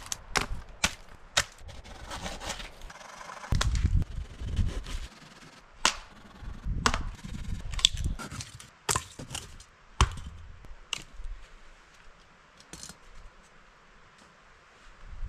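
Dry fallen branches being broken up for firewood: a string of sharp, irregular wooden cracks and knocks, some with a heavier thud, growing sparse near the end.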